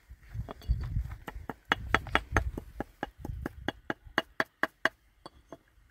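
A quick run of sharp knocks, about four or five a second, with dull thumps under the first half, stopping about five seconds in.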